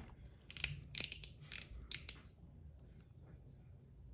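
Blasted zirconium One Pal mechanical slider being slid and snapped through its detents: a quick run of sharp metallic clicks lasting about a second and a half, then only faint sound.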